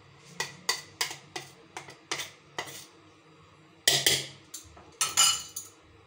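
Steel spoon scraping and knocking against the inside of a stainless-steel mixer-grinder jar as it stirs thick ground moong dal paste. It is a run of short metallic scrapes and clinks, with two louder clanks about four and five seconds in.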